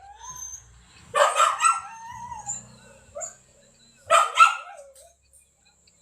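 A dog barking twice, about a second in and again about four seconds in.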